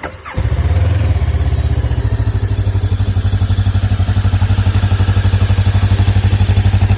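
Jawa RVM 500 scrambler's 500 cc engine started on the electric starter: a brief rising starter whine, the engine catches about half a second in, then idles steadily with even exhaust pulses.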